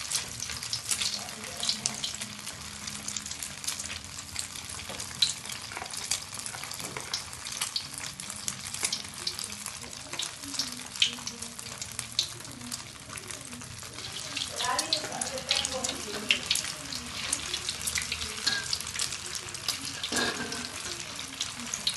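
Egg-dipped, filled gabin cracker pieces deep-frying in hot oil in an aluminium wok: a steady sizzle with many sharp little crackles and pops.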